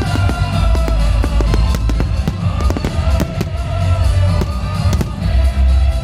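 Fireworks from a starmine display bursting and crackling in quick, irregular succession over loud music with a heavy bass.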